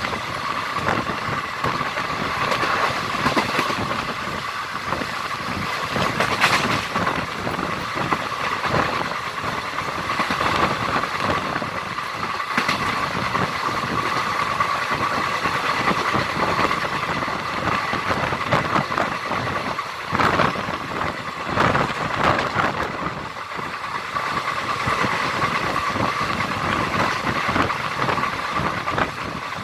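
Siddhaganga Intercity Express running along the track: a steady rush of wind and wheel-on-rail noise, with irregular clicks from the wheels and a constant high hum. It swells briefly twice.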